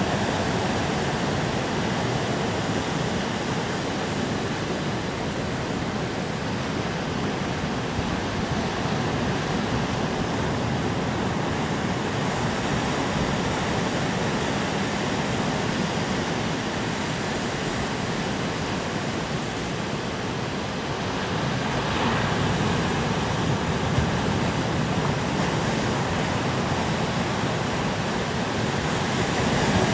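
Ocean surf washing onto a rocky shore: a steady rush of breaking waves that swells a little louder about two-thirds of the way through.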